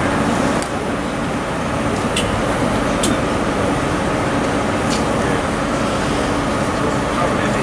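Steady rumble and hiss of a train standing at a station platform, with a low hum underneath and a few faint clicks.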